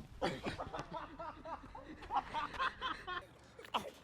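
Someone giggling in a quick run of short, breathy bursts, followed by a short sharp burst near the end.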